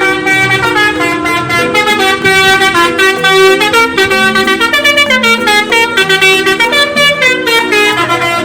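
Telolet bus horn playing a fast tune of short notes, often several pitches sounding together.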